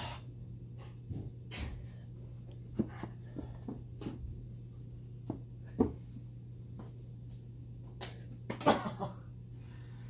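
Scattered thumps and scuffs of two people play-wrestling on a carpeted floor, with short breathy grunts and a louder burst near the end, over a steady low hum.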